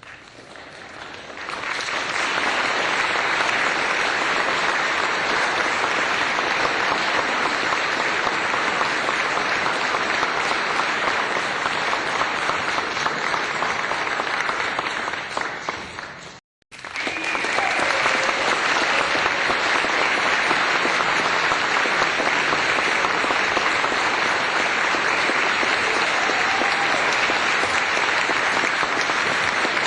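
Applause: many hands clapping in a dense, even patter. It fades in, fades out about sixteen seconds in, and after a brief silence a second stretch of applause starts abruptly.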